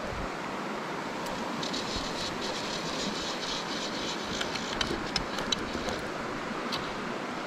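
Steady rush of stream water flowing over stones. From about two seconds in to about six seconds in, a high rasping buzz runs over it, with a few sharp ticks near the five-second mark.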